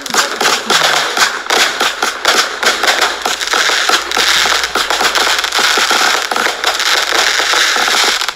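Vulcan 'Neon' firework cake firing: comets and bursts going off with dense, unbroken crackling and popping.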